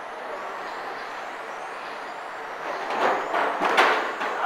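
Electric 1/10-scale RC touring cars racing, a steady mixed whine of brushless motors and drivetrains. It grows louder about three seconds in as a car passes close.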